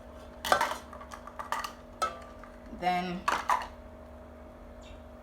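Kitchenware clinking and knocking: a handful of short, sharp knocks and clinks of utensils against a pot or cup, the loudest about half a second in.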